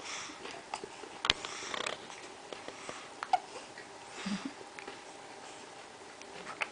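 A young baby breathing and sniffing through the nose, with a few small, sharp hiccups; one sharp catch comes about a second in.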